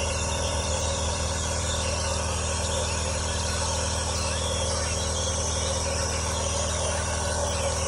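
A steady, unchanging hum with constant tones over a hiss.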